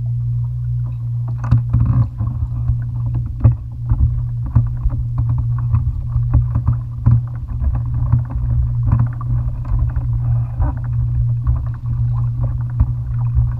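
Water slapping against a plastic fishing kayak's hull, with many irregular knocks and thumps as the angler moves about in it, over a steady low rumble.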